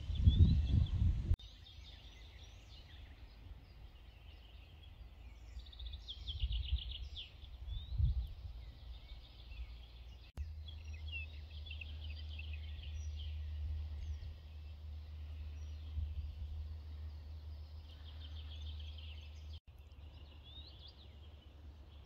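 Woodland songbirds singing, with quick high trilling phrases repeated every few seconds. Wind buffets the microphone with a loud low rumble for the first second or so. A steady low rumble sits under the birds for several seconds in the middle.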